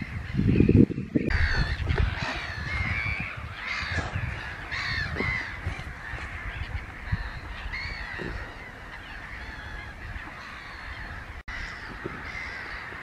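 Many waterbirds calling at once: short, harsh, honking calls that overlap and repeat throughout, louder in the first half. A brief low rumble sounds near the start.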